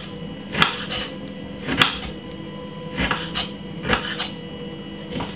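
Kitchen knife knocking against a wooden cutting board while peeling lemon halves: about seven separate sharp knocks at uneven intervals, some in quick pairs, over a faint steady hum.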